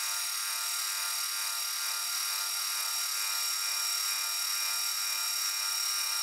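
Milling machine spindle running a 3 mm drill bit into a steel crankshaft: a steady high whine.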